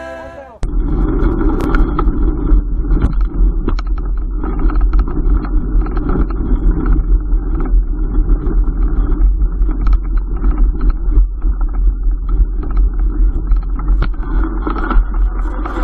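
Wind buffeting the camera's microphone as a loud, uneven low rumble, with scattered clicks and knocks. Music cuts off abruptly about half a second in.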